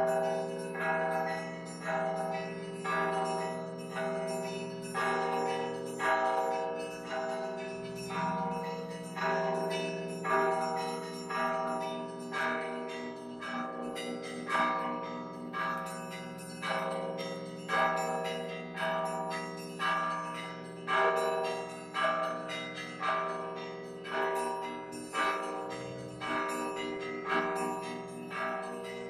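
Russian Orthodox bell ringing from a monastery belfry: several bells of different pitches struck in a steady rhythm, about one accented stroke a second, over the long hum of the large bells.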